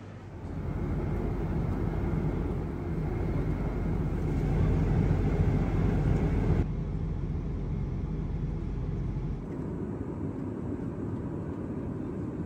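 Airliner cabin noise: a steady rumble of an airliner's engines and airflow heard inside the cabin, its tone shifting abruptly twice as shots change.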